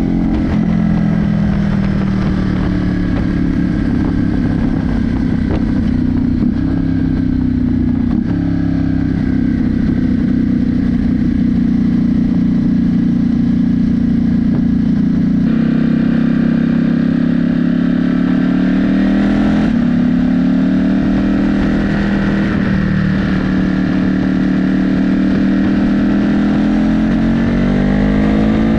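Ducati Monster 937's Testastretta L-twin engine running through a Mivv exhaust with the dB killer removed, recorded on board while riding. The engine note holds steady for stretches and changes pitch a few times, dipping about eight seconds in and climbing again near twenty seconds.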